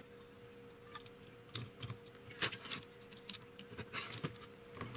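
Faint, irregular clicks and taps of small parts and tools being handled on a TV's circuit board while a replacement diode is fitted, over a faint steady hum.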